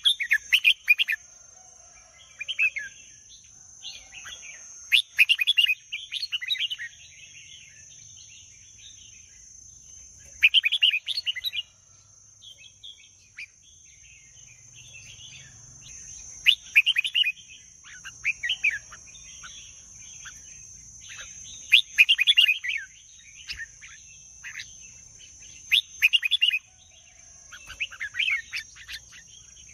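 Red-whiskered bulbul singing: short phrases of quick chirping notes repeated every few seconds, over a steady high-pitched hiss.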